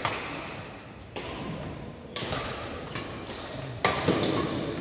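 Badminton racket strings hitting a shuttlecock in a rally: sharp hits roughly a second apart, the loudest near the end, each followed by a short echo.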